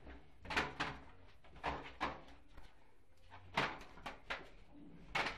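Soft-coated wheaten terrier going at a vacuum cleaner's floor head: a run of short, sharp sounds at irregular intervals, about eight in five seconds.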